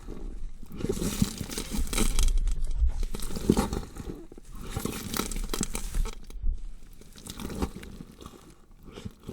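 Horror sound effect of a body being dissected: wet, noisy cutting and tearing of flesh in uneven bouts that swell and fade every second or two, growing sparser near the end.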